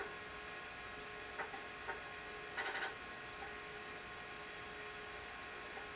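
Commodore 900 computer running with a steady electrical hum, broken by two short clicks about 1.5 and 2 seconds in and a brief burst of hard-disk seek chatter near 3 seconds as the demo loads its next page of text.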